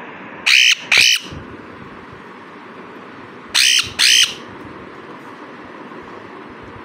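Pet parrot giving loud, harsh squawks in two pairs: two quick squawks about half a second in, then two more about three and a half seconds in.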